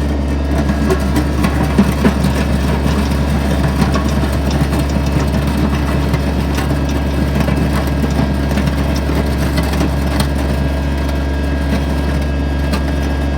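Kubota BX25D's three-cylinder diesel engine running steadily, with irregular crunching and scraping as the back blade works the road surface, loudest in the first few seconds.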